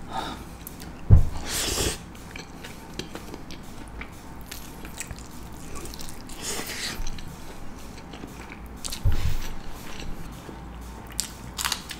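Close-miked eating: biting into and chewing a piece of chicken from a plate of biryani, with many small wet mouth clicks and smacks. Two dull thumps come about a second in and again about nine seconds in.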